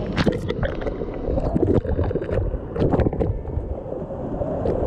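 Low rushing water noise with scattered knocks, swelling louder twice.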